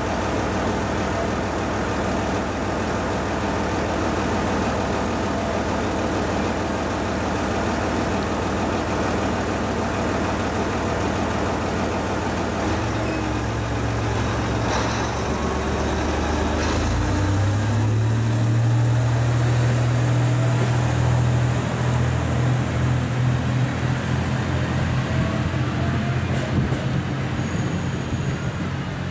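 ET122 diesel railcar's engine idling at the platform, then revving up in two steps around the middle as the railcar pulls away, its engine note growing louder. A couple of short sharp sounds come just before it gets going.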